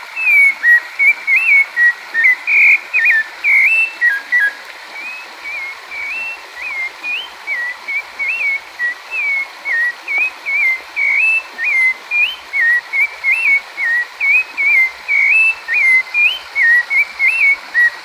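A sabiá thrush singing a long, unbroken run of clear whistled notes, a few each second, over a steady rush of flowing water. The song goes softer for a few seconds about a quarter of the way in, then returns at full strength.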